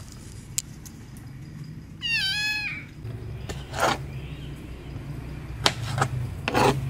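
A kitten meows once, a short call that rises and falls, about two seconds in. After it, a kitchen knife chops diced tomatoes on a plastic cutting board, giving a few sharp knocks that are loudest near the end.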